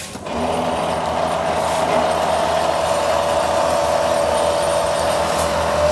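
A loud, steady mechanical drone with a humming tone that starts abruptly just after the beginning and holds level.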